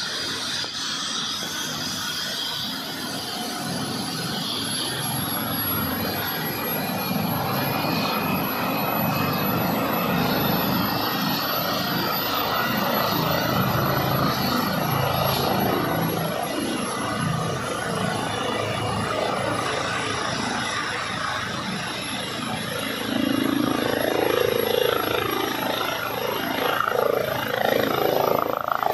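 Airbus H135 P3 helicopter running on the ground before takeoff, its main rotor turning: a steady high turbine whine from its twin Pratt & Whitney PW206B3 turboshafts over the rushing rotor noise, growing louder as it winds up, loudest near the end.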